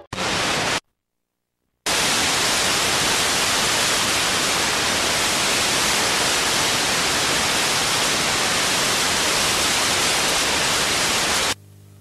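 Analog television static: even white-noise hiss of an untuned TV. A brief burst of hiss cuts out into about a second of silence, then steady hiss, which drops to a faint low hum near the end.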